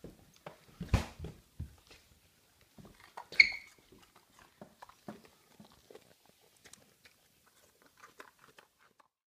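An American foxhound chewing a raw carrot: irregular crunches and clicks of teeth on carrot. The loudest is one sharp crack about three and a half seconds in.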